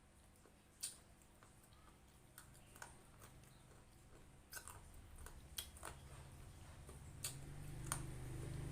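A person chewing fried chicken and rice, with a few sharp clicks of bites and mouth noises, most of them in the second half.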